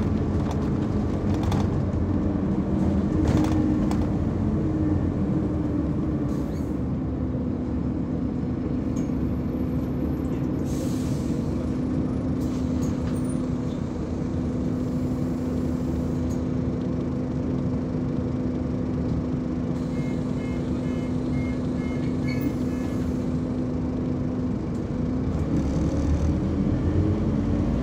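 Scania Omnicity single-deck diesel bus heard from inside the passenger saloon: a steady engine rumble and hum while the bus stands, with a brief hiss about eleven seconds in and a short run of beeps a few seconds later. Near the end the hum stops and the engine note rises as the bus pulls away.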